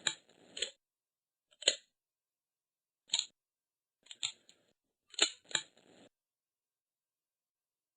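A series of sharp mechanical clicks, about eight of them at irregular intervals, stopping about six seconds in.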